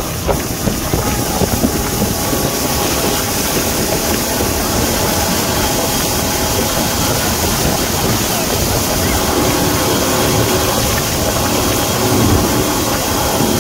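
Motorboat engine running steadily while towing at speed, mixed with the rush of water churning in the boat's wake.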